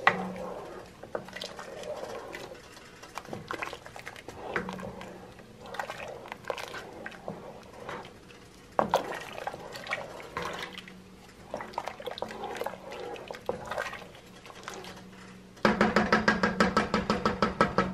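Wooden spoon stirring a thick coconut-milk and squash stew in a metal pot: soft wet sloshing with light scrapes and taps against the pot. Near the end the stirring speeds up into a louder, rapid, even run of strokes.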